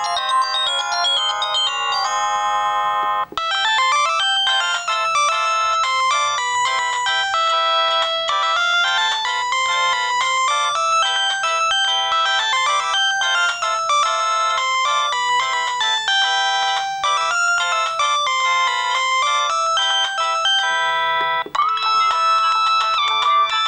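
Samsung SGH-C130 mobile phone's built-in polyphonic ringtones playing, electronic melodies with several notes at once. One tune ends about three seconds in and a new one starts, and another change comes near the end.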